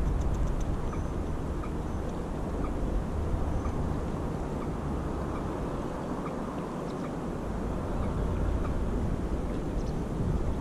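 Steady low outdoor rumble, with faint short chirps of small birds now and then.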